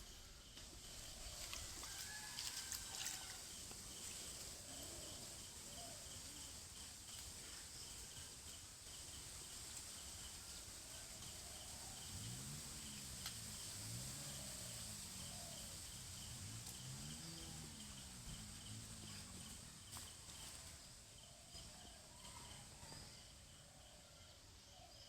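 Outdoor rural ambience: a steady high insect hum with a fast, even chirping. From about halfway through, a series of low, rising-and-falling animal calls sounds for several seconds.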